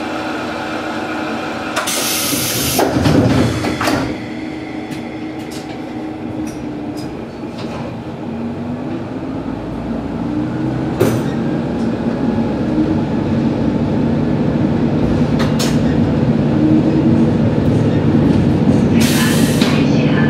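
Diesel railcar standing at a station with its engine idling, with a loud hiss and knocks about two to four seconds in. From about halfway through, the engine speeds up with a rising drone and grows louder as the railcar pulls away, with another short hiss near the end.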